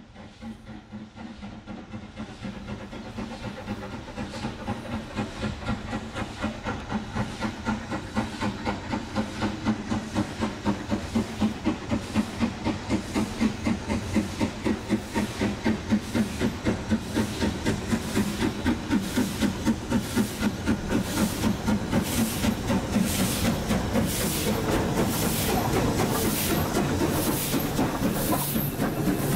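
BR Standard Class 4MT 2-6-0 steam locomotive pulling away with a train, its exhaust chuffing in a steady rhythm that quickens and grows louder as it gathers speed and approaches. Near the end it passes close by, and the rumble of its wheels and the coaches joins the beats.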